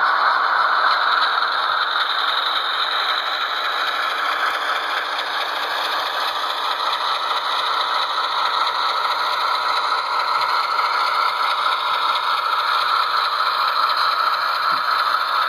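The Tsunami sound decoder in an HO-scale Athearn Genesis ES44AC playing its diesel prime mover sound through the model's small speaker: a steady, tinny engine drone with a rattle, as the locomotive gets under way along the track.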